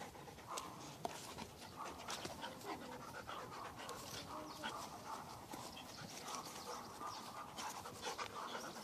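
Two dogs, a Rottweiler among them, play-fighting: panting, with many short irregular clicks and scuffles through it.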